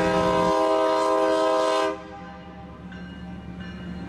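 Diesel switcher locomotive's air horn sounding one long, loud blast that cuts off about two seconds in. A quieter steady rumble of the idling locomotive remains, with a faint short tone about three seconds in.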